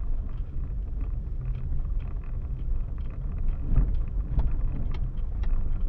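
A car driving, heard from inside the cabin: a steady low rumble of engine and road noise with a few light clicks.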